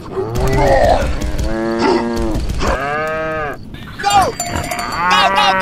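Cow mooing several times: long drawn-out calls, then shorter, higher calls near the end.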